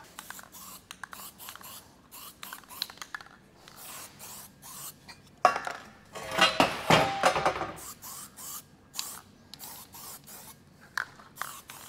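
Aerosol can of etch primer being shaken, its mixing ball rattling, then sprayed in short hissing bursts, with a louder burst of noise about halfway through.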